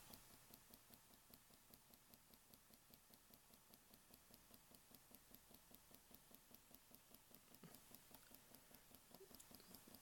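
Faint, rapid ticking from a small coin vibration motor pulsing on and off about five times a second, driven by a 5 Hz tone from a computer's headphone jack.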